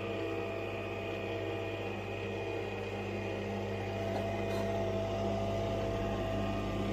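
Nespresso Vertuo Pop capsule machine brewing a Gran Lungo: its capsule-spinning motor and pump give a steady, loud whirring hum with several steady tones. One higher tone grows stronger about four seconds in.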